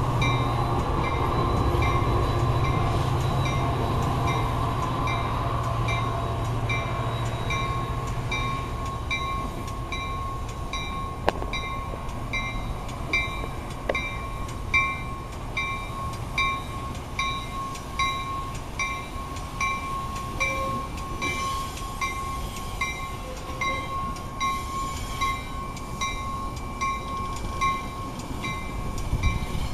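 Metra bilevel commuter coaches rolling past on the rails, with a low diesel rumble fading over the first several seconds and irregular wheel knocks later on. A high ding repeats about one and a half times a second throughout.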